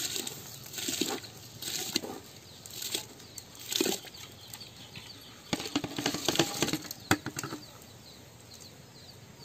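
Washed rice being pushed by hand and tipped out of an aluminium vessel into a pot of water for boiling: a string of wet splashes and grains scraping on the metal, about one a second at first, then a denser run of splashes past the middle as the vessel is tipped.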